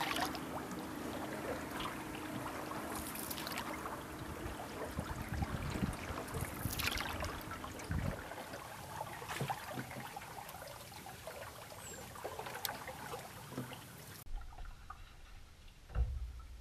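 Water trickling and splashing, with a few brief splashes and a low knock partway through.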